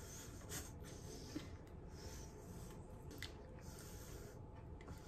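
Quiet room with faint rustling and a couple of soft clicks.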